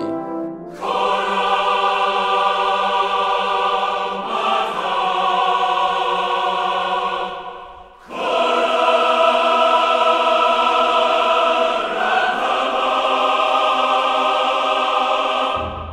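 Background music: a choir singing long held chords, in two phrases of about seven seconds each, with a change of chord partway through each.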